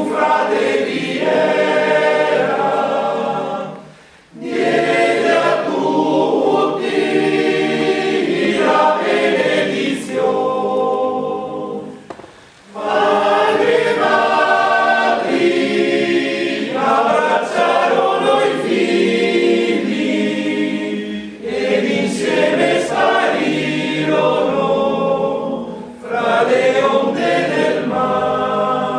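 A choir singing in several parts, in long sustained phrases, with brief pauses for breath about four and about twelve seconds in.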